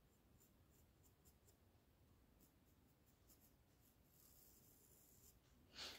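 Faint scratchy strokes of a paintbrush on fabric, with a brief soft hiss near the end.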